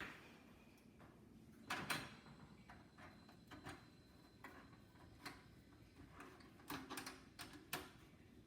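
Faint scattered clicks and small metal knocks of a screwdriver and case screw as the Wi-Fi card's slot bracket is screwed into a PC case. The loudest knocks come about two seconds in and again near the end.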